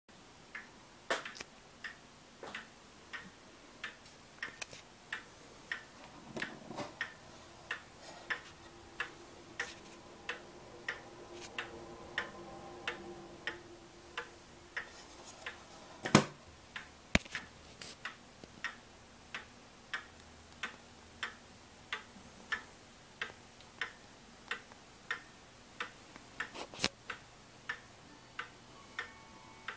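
Seth Thomas George Washington banjo clock ticking steadily, about one and a half ticks a second, its pendulum swinging. A single louder, sharper knock comes about sixteen seconds in.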